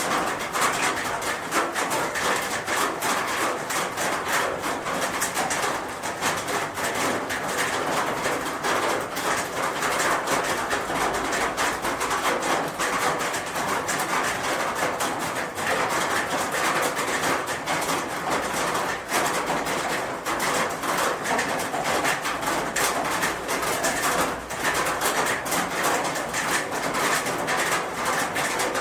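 Rain falling on a roof: a steady, dense patter of many individual drops hitting the surface.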